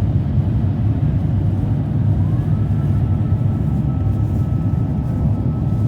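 Airliner cabin noise in flight: a steady, loud low rumble of engines and rushing air, with a faint thin tone that rises about two seconds in and then holds steady.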